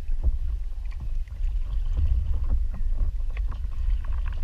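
Water lapping and splashing against a stand-up paddleboard as it is paddled, in many small irregular splashes, over a steady low wind rumble on the microphone of a camera mounted on the board.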